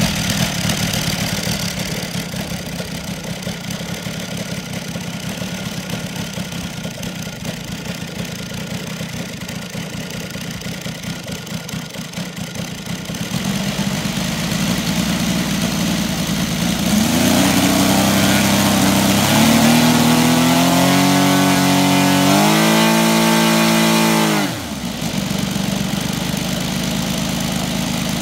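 Saito FG-60R3 three-cylinder four-stroke gasoline radial engine turning a 22x10 propeller on a freshly broken-in engine: idling steadily, then opened up in steps with the pitch climbing to a high, steady full-throttle run near 6800 RPM. It is cut back sharply to idle near the end.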